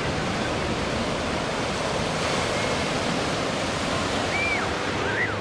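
Steady rushing noise of ocean surf and wind, with two faint high chirps near the end.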